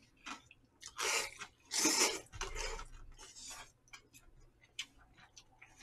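Noodles and broth of jjamppong, a spicy seafood noodle soup, being slurped in two short slurps about a second and two seconds in, followed by softer chewing and mouth noises with small clicks.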